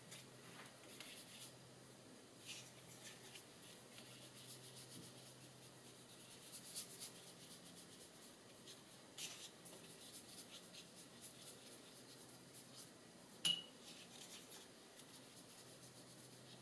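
Faint, scratchy strokes of a watercolour brush rubbing on paper as red paint is brushed in, with one sharp click about three-quarters of the way through.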